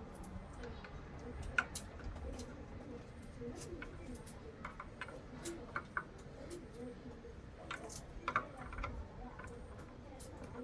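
Scattered light clicks and taps, a dozen or so at irregular intervals, as small parts and tools are handled; no motor is running.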